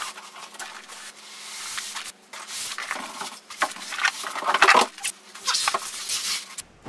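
Cardboard carton and foam packing blocks scraping and rustling against each other as a boxed 3D printer is pulled out of its shipping box, in several scrapes with short pauses between them.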